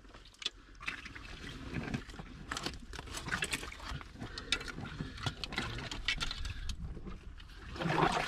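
Water sloshing and splashing in a shallow rock pool as an arm gropes inside a rock crevice, with irregular small splashes, drips and clicks. It gets louder near the end.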